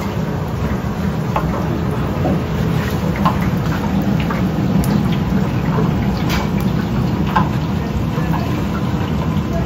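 Steady low hum of kitchen equipment, with scattered light clicks and knocks of kitchen work.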